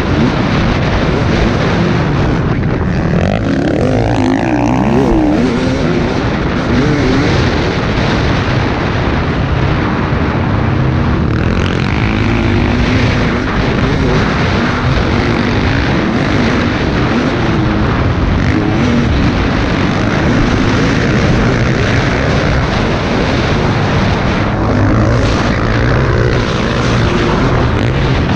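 KTM 250 EXC TPI two-stroke dirt bike engine revving up and down as it is ridden hard around a motocross track, with wind rushing over the helmet-mounted microphone.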